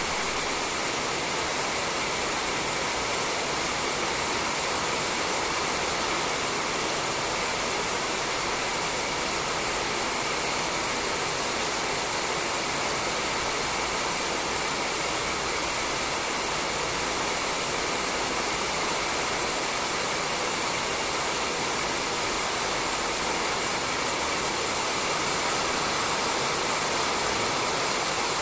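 Steady rain falling on a roof, a dense even hiss without pauses.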